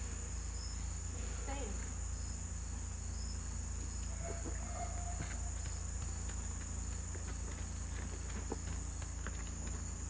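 Steady high-pitched chorus of insects, with a low rumble and a few faint scattered taps under it, such as hooves on dirt.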